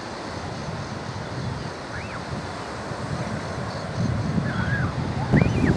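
Wind rumbling on the microphone over steady surf noise, the wind growing stronger about four seconds in. A few short rising-and-falling tern calls come through: one about two seconds in and two or three near the end.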